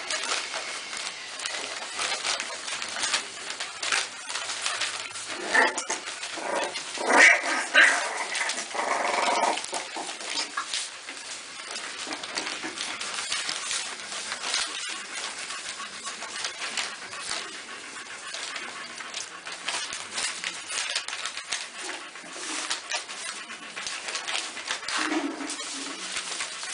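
American Staffordshire terrier puppies whimpering and yelping over constant crackling of the newspaper bedding as they crawl about. The loudest cries come about seven to nine seconds in.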